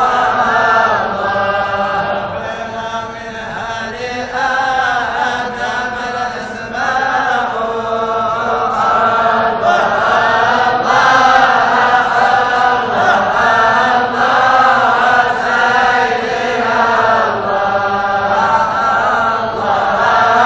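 A large group of men chanting a Sufi devotional hymn together in unison, the melody rising and falling without pause.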